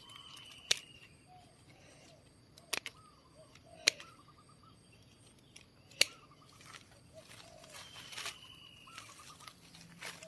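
Birds calling faintly in a garden: soft repeated chirps and, twice, a thin slightly falling whistle. About six sharp clicks or snaps cut in, the loudest around the middle.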